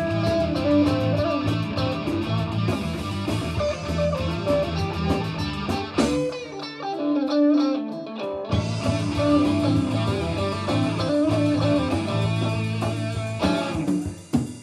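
Live rock band with electric guitars, bass and drums playing loudly. About six seconds in the bass and drums drop out for a couple of seconds, leaving a guitar alone, then the full band comes back in. Near the end the band cuts away, leading into drums.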